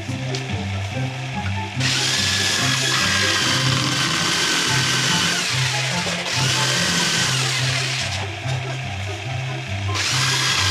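Corded electric jigsaw cutting a wooden board, starting about two seconds in, pausing for a moment around the middle, then stopping for about two seconds before starting again near the end. Background music with a steady beat plays underneath.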